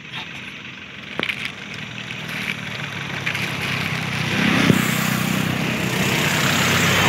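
A motor vehicle's engine, growing steadily louder as it draws near. A couple of sharp clicks come a little over a second in.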